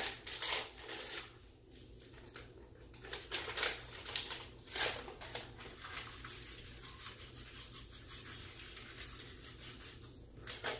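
A paper packet of soup seasoning crinkling and rustling in a few short bursts during the first five seconds, over a faint steady low hum.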